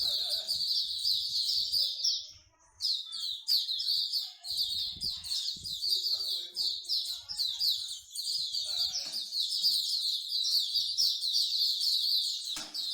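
Pet songbird singing a fast, continuous chattering song, with a brief pause about two seconds in.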